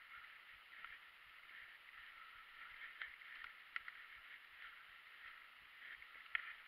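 Faint rustle of fat mountain-bike tyres rolling over dry leaf litter on a dirt trail, with a few sharp clicks and rattles from the bike, the loudest a little past six seconds in.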